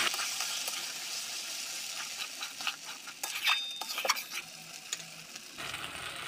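Onion paste sizzling in hot oil in a metal kadai while a metal spoon stirs it, scraping and clinking against the pan. The sizzle is strongest at first and fades, with a few sharp clinks in the middle.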